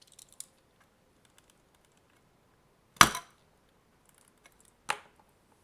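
Two sharp plastic cracks as a sealed AC adapter case is forced apart, the first and loudest about halfway through, a smaller one near the end, with small clicks of handling between them.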